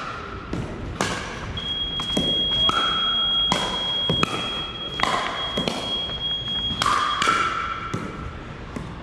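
Pickleball rally: paddles striking the hard plastic ball in sharp pops about every half second to second, mixed with ball bounces, echoing in a gymnasium. A steady high-pitched tone sounds over the middle of the rally.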